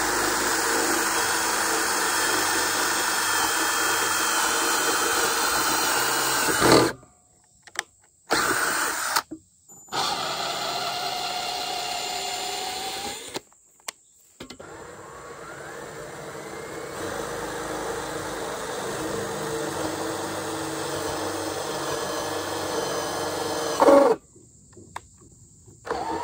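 Cordless drill with a long twist bit boring through a wooden post behind a metal bracket, the motor running steadily under load. It stops abruptly three times with silent gaps between runs, and two runs end in a short loud sound.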